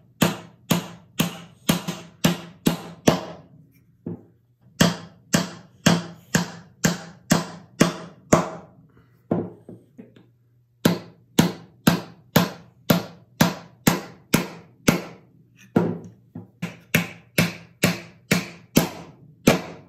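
Claw hammer driving small nails into a wooden kit, struck at a steady two to three blows a second in four runs with short pauses between them.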